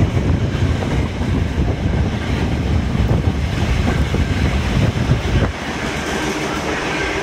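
Carriage of a steam-hauled passenger train running at speed, wheels rolling on the rails, with wind rushing on the microphone at the open window. About five and a half seconds in the wind rumble drops suddenly, leaving the steadier run of the carriage heard from inside.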